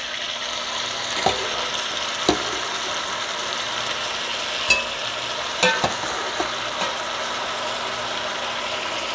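Oxtail pieces and vegetables sizzling in a hot enamelled cast-iron pot, with a metal spoon clinking against the pots several times as the meat is spooned in.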